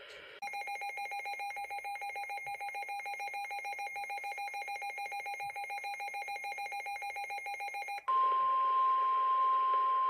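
Emergency alert tones. A rapidly pulsing electronic warble of several fixed pitches runs for about seven and a half seconds, then gives way to a single steady high tone, the weather-radio attention signal that comes before a new warning.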